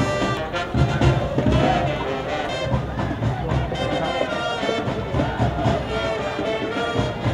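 Brass-led music, with trumpets over a low drum beat, playing steadily.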